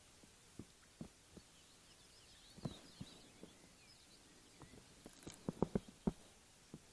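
Faint scattered knocks and clicks, with a quick run of louder knocks about five to six seconds in, over faint birdsong.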